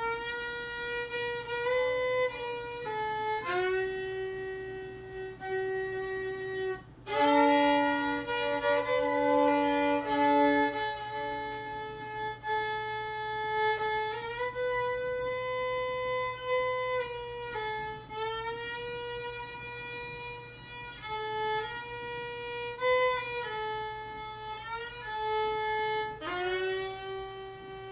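Background music: a slow violin melody of long held notes, with a lower second note sounding alongside for a few seconds about seven seconds in.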